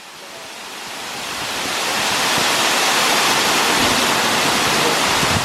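Waterfall crashing: a steady rush of falling water, swelling over the first two seconds and then holding level.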